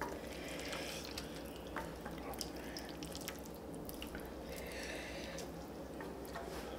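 Quiet, wet eating sounds of ramen being eaten: noodles slurped and chewed, with scattered small clicks.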